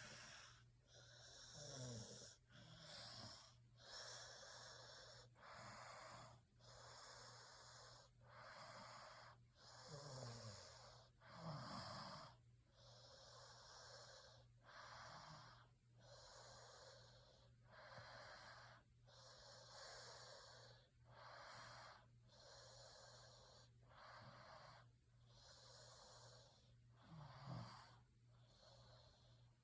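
Faint, steady snoring: noisy breaths in and out in an even rhythm, one about every second and a half. A few low snores fall in pitch, about two seconds in, around ten to twelve seconds, and near the end.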